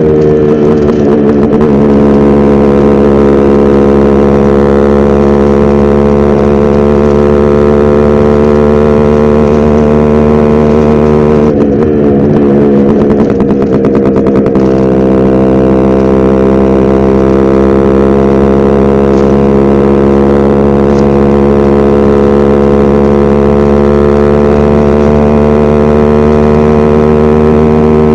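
Yamaha RX100's two-stroke single-cylinder engine running at a steady speed, a constant drone that wavers briefly in pitch about twelve seconds in.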